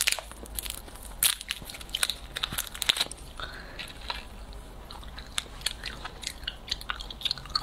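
Clear plastic candy wrapper crinkling as a mango jelly cube is unwrapped, then close-miked chewing of the soft, chewy jelly, with small wet mouth clicks.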